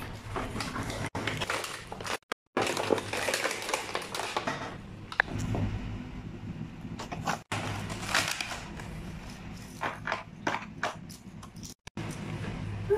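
Clear plastic blister packaging crackling and rustling, with irregular clicks and knocks of plastic robot toy parts being handled.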